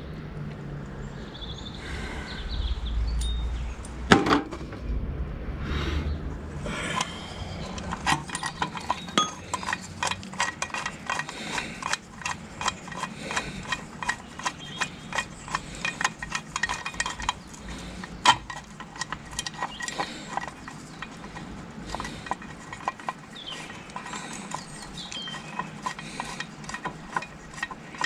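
Spanner and steel brake parts clinking and clicking, a long run of irregular light metal knocks as nuts are worked on a Fordson Major's brake linkage; a low rumbling handling noise comes first, for a few seconds.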